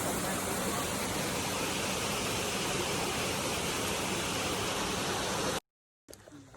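A waterfall rushing: a steady, even hiss of falling water that cuts off suddenly near the end, leaving a brief silence and then much quieter outdoor sound.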